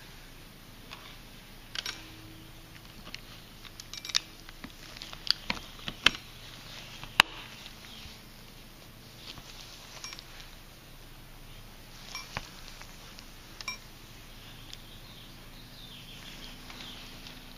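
Irregular clicks and knocks from a vintage mechanical alarm clock being handled, its knobs and case knocked and turned. There is no steady ringing and no regular ticking.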